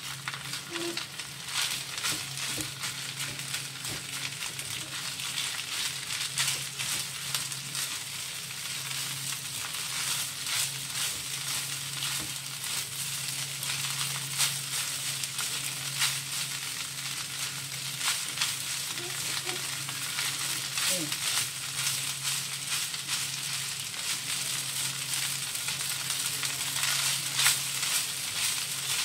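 Rice sizzling as it is stir-fried in a wok over a gas flame, with a wooden spatula scraping and knocking against the pan many times as it turns the rice.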